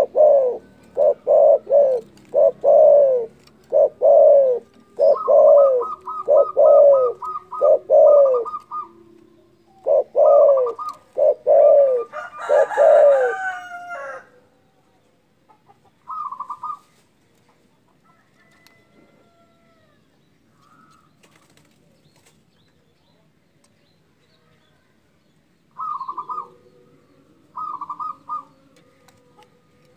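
Spotted dove (derkuku) cooing: a long run of loud, rapid coos for about the first half, then it falls quiet, with two short calls near the end.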